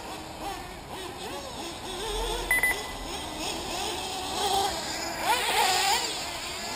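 Several 1/8-scale nitro buggy engines racing around the track, their high whine rising and falling as the cars accelerate and brake, one getting louder and rising in pitch about five seconds in. A short electronic beep sounds about two and a half seconds in.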